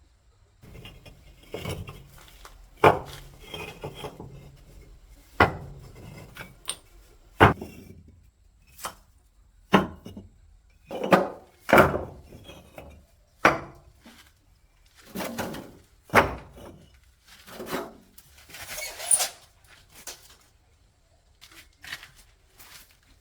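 Irregular knocks, clinks and short scrapes of hard objects being handled, about fifteen of them spread unevenly, with pauses in between.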